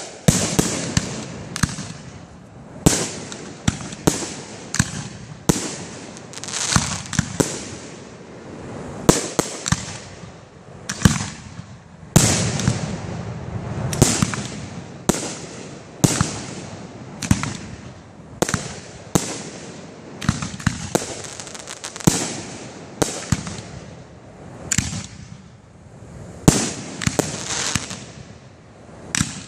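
Aerial firework shells bursting in quick succession: a steady run of sharp bangs, about one or two a second, with crackling between them.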